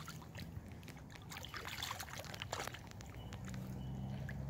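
Yorkshire terrier wading in shallow lake water, with light sloshing and small splashes around its legs. A low steady hum comes in about three seconds in.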